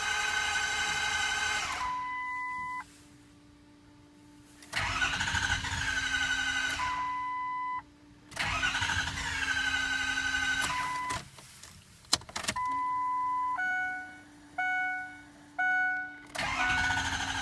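The starter of a 2004 Ford F350's 6.0 L Power Stroke V8 diesel cranking it at high speed in several attempts. The engine spins but never fires, because the tripped positive air shutoff valve has closed off the intake air. Steady electronic tones sound between attempts, and short beeps sound near the end.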